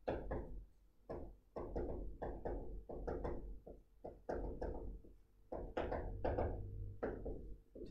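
Handwriting: a pen tapping and knocking on a hard writing surface in quick, irregular strokes, with short pauses between clusters.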